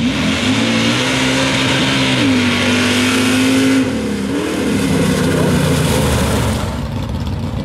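Chevrolet S-10 drag truck's engine at full throttle as it launches down a dirt track. The note climbs right away, holds high with a brief step in pitch about two seconds in, then falls away after about four seconds as the driver lifts at the end of the run.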